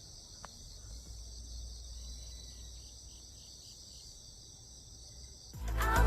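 Crickets chirping in a steady chorus with a regular pulse. Near the end, loud music comes in.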